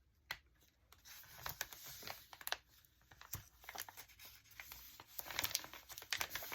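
Stiff, coffee-dyed paper crinkling and crackling as it is handled and pressed onto a journal page, with scattered small clicks and rustles, busier near the end; the paper is crunchy from the coffee dyeing.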